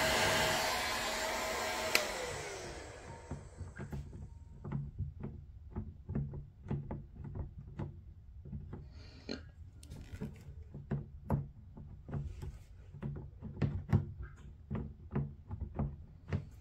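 Heat gun blowing, switched off with a click about two seconds in, its fan winding down with a falling whine. Then irregular light taps and clicks as a small hand tool presses softened plastic on the blow mold.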